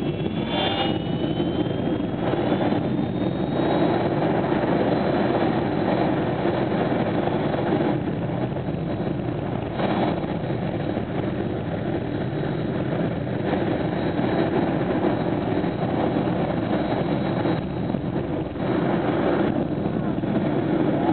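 Green Mamba jet car's jet engine running steadily, its exhaust blast setting a wrecked car ablaze. A faint high whine rises slightly in the first few seconds.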